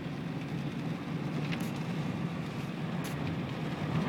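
Steady low rumble of a car driving, heard from inside the cabin, with a couple of faint brief ticks.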